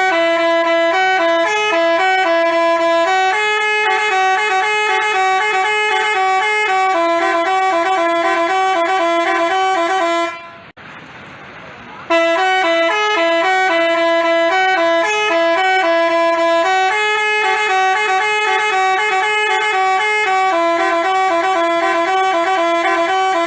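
Basuri telolet multi-tone bus horn playing a quick melody of stepping horn notes. The same tune runs twice, about eleven seconds each, with a brief break about ten seconds in.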